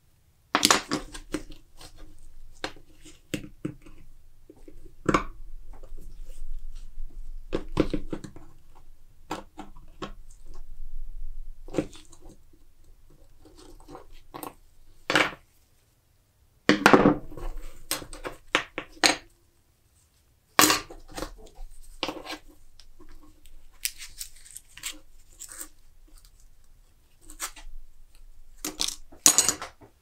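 Rusty steel pocket-knife parts being handled and pried apart on a wooden board: scattered clicks, scrapes and light knocks of metal on wood, with two brief silent breaks.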